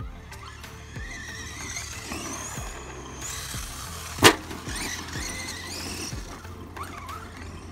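Electric motor and drivetrain of a Pro-Line PRO-MT 4x4 1/10-scale RC monster truck whining, rising and falling in pitch with the throttle. A little past the middle comes one sharp, loud bang as the truck lands from a jump.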